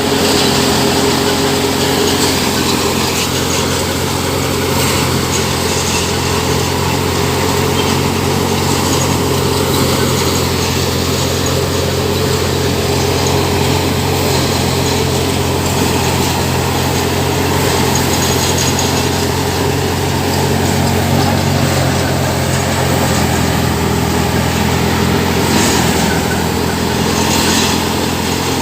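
Engine-driven rice thresher running steadily under load, with a constant engine hum and the noise of the threshing drum.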